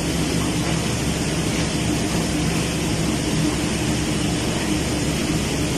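Steady rushing noise with a low, even hum from a ventilation fan, unchanging throughout.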